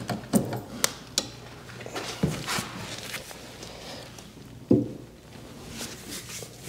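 Metal clicks and clanks of a breaker bar and socket being worked on a SCAG mower deck's blade spindle nut: several sharp knocks, the loudest about four and a half seconds in.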